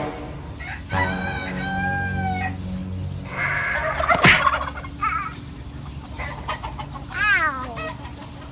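Roosters crowing and chickens clucking, with a long, steady crow about a second in and a shorter call that falls in pitch near the end.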